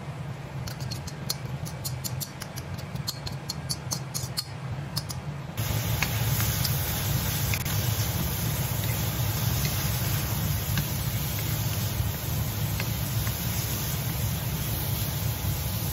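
Shrimp and vegetables sizzling in a steel wok as a wooden spoon stirs them, with a run of sharp ticks in the first few seconds. About five seconds in, the sound switches abruptly to a louder, fuller hiss.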